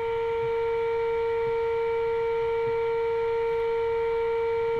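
Steady test tone with overtones from the AWA 586MA valve radio's speaker. It is the signal generator's modulation tone, received as the generator is tuned to the radio's intermediate frequency of about 455 kHz for peak output.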